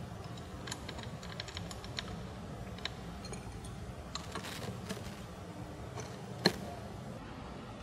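Light metallic clicks and taps as an adjustable wrench works a nut onto a bolt through a bracket on a metal wagon frame, with one sharper clank about six and a half seconds in.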